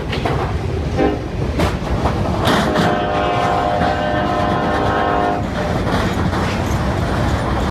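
Norfolk Southern 1065, an SD70ACe diesel locomotive, sounding its Nathan K5LA air horn: a short note about a second in, then a held chord of about three seconds. The train's low rumble and wheel clatter run underneath.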